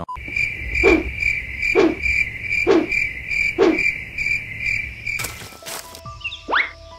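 Nature ambience sound effect: crickets chirping in a steady pulsing trill, with a frog croaking about once a second. About five seconds in it breaks off into a brief hiss, followed by quick rising chirp-like sound effects at about two a second.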